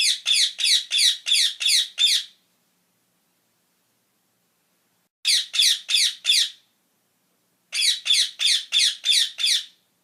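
Rose-ringed parakeets screeching in three bouts of rapid, harsh calls, about three a second, each call falling in pitch. The first bout comes at the start, the others about five and eight seconds in.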